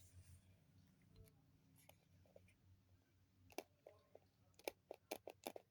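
Near silence with a faint low hum, then a quick run of light clicks and taps in the last two seconds.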